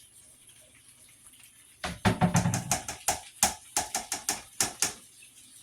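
A cooking utensil knocking and scraping against a frying pan while fried rice is stirred: a quick run of a dozen or more sharp knocks over about three seconds, starting a couple of seconds in.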